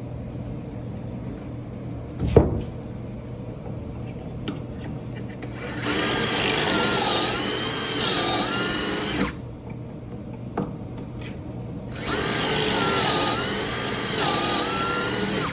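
Power drill boring pocket holes in a pressure-treated 2x4 through a Kreg pocket-hole jig: two runs of a few seconds each, the motor's whine dipping in pitch and recovering as the bit cuts. There is a sharp knock a couple of seconds in, before the first run.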